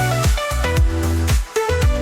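Background music: an upbeat electronic pop track with a steady drum beat and bass line, no singing in this stretch.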